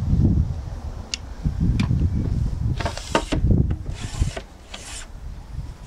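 Glass panes of a Land Rover Defender sliding window being slid along the frame's channels: two light clicks, then four short scraping rubs about halfway through. The slide test shows the new screws sit low enough that the panes no longer catch on them.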